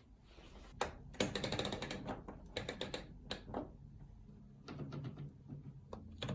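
Washing machine program selector dial being turned, clicking rapidly through its detents in several runs, the densest about a second in.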